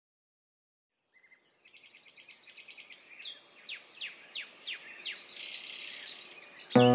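Songbird chirping that fades in after about a second of silence: a fast trill joined by a series of quick downward-sliding whistles, gradually getting louder. Music with held notes starts right at the end.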